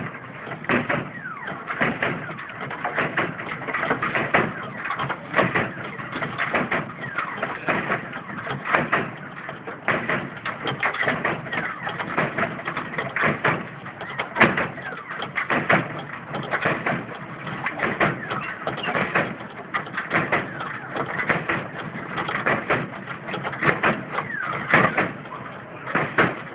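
Lowrider Oldsmobile Cutlass hopping on its hydraulic suspension: a busy run of knocks and bumps from the bouncing car, with many short squeaks.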